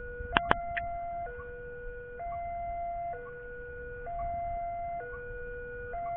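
Level-crossing warning alarm of the Indonesian type, sounding a two-tone signal that alternates between a low and a higher tone about every second, warning of an approaching train while the barriers are still up. Two sharp clicks come about half a second in.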